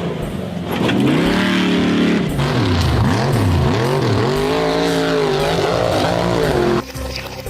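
Monster truck engine revving, its pitch rising and falling several times, then cutting off suddenly near the end.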